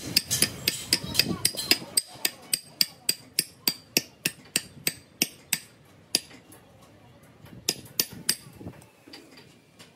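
Hammer blows on metal, a quick even run of about three strikes a second for the first five seconds or so, then a few scattered blows.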